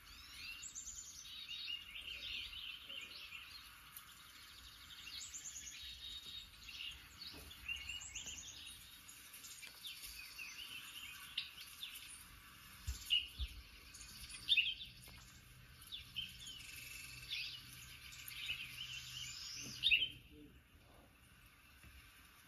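Birdsong with many quick chirps and warbles played through a television's speakers from a bird video; the chirping stops near the end.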